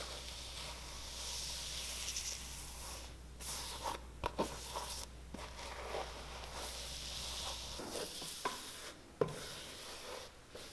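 A hot electric shoemaker's iron sliding over hot cork filler in a shoe's footbed, smoothing it down: a soft hissing and rubbing with a few small clicks. A low steady hum runs under it and stops about eight seconds in.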